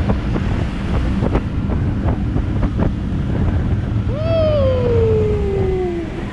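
Wind buffeting the microphone of a scooter being ridden fast, a steady, loud low rumble with some crackle. About four seconds in, a whine falls steadily in pitch for two seconds.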